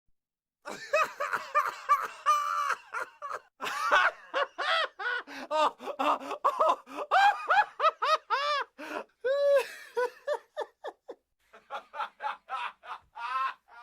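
Stock sound-effect recording of a person laughing out loud in rapid, repeated ha-ha bursts that rise and fall in pitch. The laughter breaks off briefly about eleven seconds in, then another quicker laugh starts.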